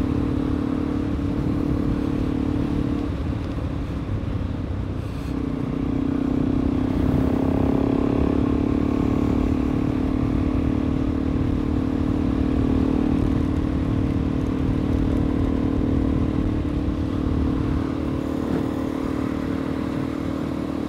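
Suzuki DR-Z400E's single-cylinder four-stroke engine running steadily while riding. The note drops away about three to five seconds in, then picks up again and holds steady.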